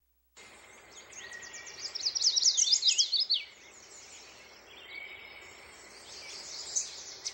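A songbird singing rapid runs of high chirps and trills over a steady background hiss, loudest from about two to three and a half seconds in, then softer chirping.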